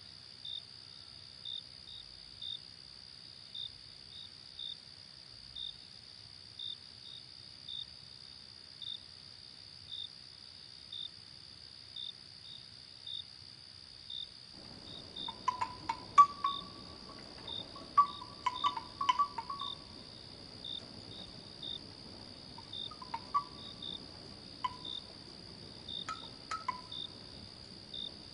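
Night crickets and other insects: a steady high-pitched drone with short chirps repeating every second or so. About halfway through, the background hiss grows louder and scattered short chirps and clicks join in.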